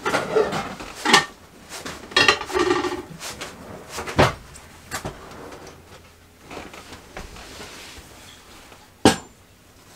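Caravan kitchen cupboards and drawers being opened and shut while cookware is handled. A few sharp knocks, about a second in, about four seconds in and loudest near the end, with a short clatter of pots or dishes around two to three seconds in.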